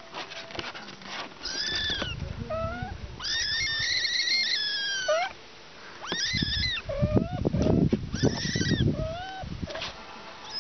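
Kittens mewing, a string of short high-pitched meows, some drawn out and falling at the end. Partway through, a low rumbling noise runs under the calls.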